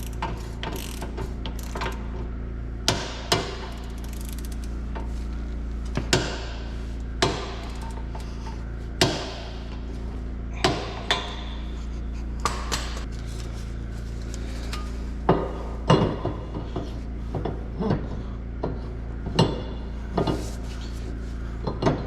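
Hand tools working on a steel wheel hub: sharp metal clanks and clicks at irregular intervals, roughly one every second, over a steady low hum.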